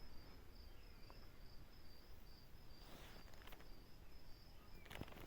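Faint outdoor ambience with an insect chirping in a steady, evenly spaced high pulse, and a few soft rustles or knocks a few seconds in.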